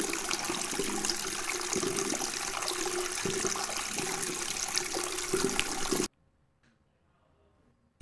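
A loud, steady rushing noise that cuts off suddenly about six seconds in.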